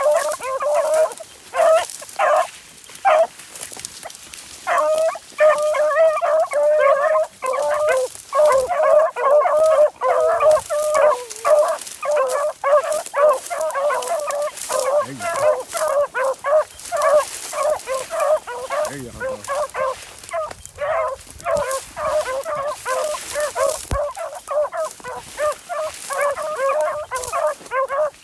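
Beagles baying on a rabbit's track: a run of short, repeated hound calls, overlapping and going on with only brief pauses, the sound of the pack giving tongue as it trails the running rabbit.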